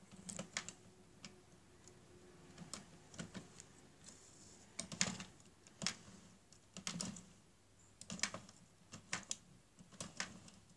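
Irregular plastic clicks and taps from an Addi Express circular knitting machine as its handle is turned slowly and the dropping needles release stitches, which are picked off onto a darning needle. The clicks come singly and in small clusters of a few per second.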